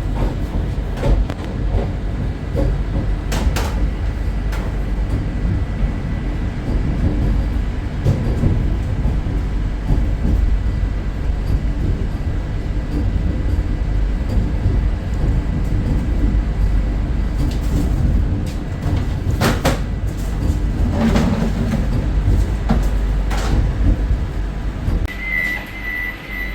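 Vande Bharat Express train running on the track: a steady low rumble and rattle with occasional sharp clicks of the wheels. Near the end the rumble drops away and a high, repeated beeping tone begins.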